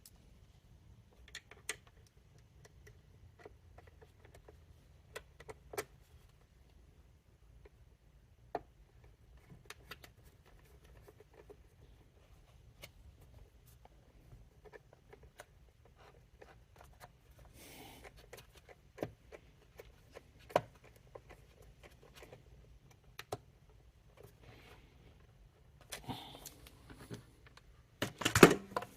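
Small plastic parts of a vacuum cleaner brush head being handled and fitted together: scattered light clicks and knocks, with a louder clatter near the end.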